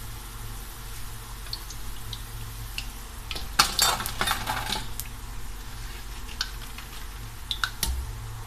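Metal cooking utensils clinking and scraping against a pan or dish, with a louder stretch of scraping and clatter about three and a half seconds in and a few sharp clicks after it.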